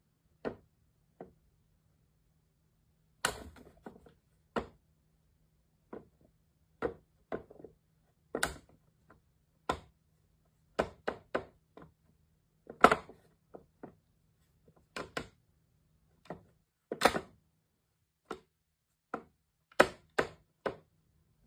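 A series of irregular sharp knocks and taps, some single and some in quick clusters, over a faint steady low hum.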